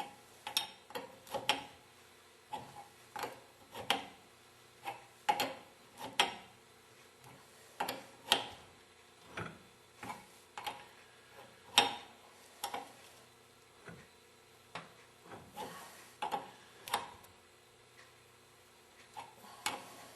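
Wrenches clicking and clinking on the pump's pipe-thread hydraulic coupler fittings as they are repositioned and snugged down, with irregular sharp metallic clicks about one or two a second.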